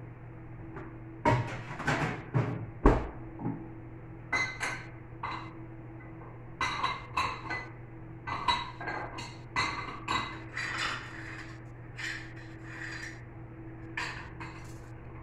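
Plates clinking and clattering as they are handled and stacked on a kitchen counter: a run of separate knocks, each with a short ring. The loudest knocks come in a cluster in the first few seconds.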